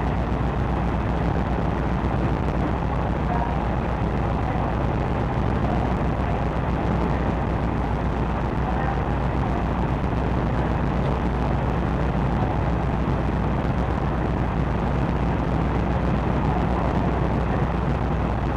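Steady low rumble and even rushing noise from a car ferry's engines and machinery as the ship berths slowly alongside the quay.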